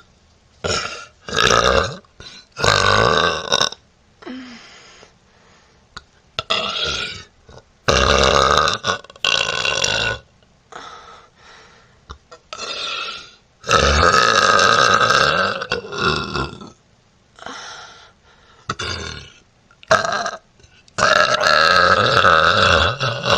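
A woman burping again and again: a string of loud burps of varying length, from short ones to drawn-out ones of about two seconds, with short pauses between them.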